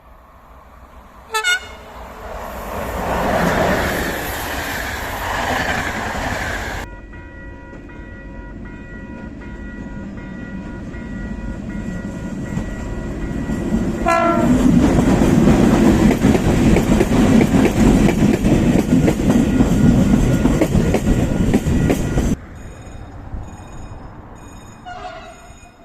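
Short train horn blasts, a driver's greeting, each followed by a train passing at speed with its wheels clattering over the rails. There are two blasts, about a second in and about a third of the way through, and a fainter one near the end. The passing-train noise cuts off abruptly twice.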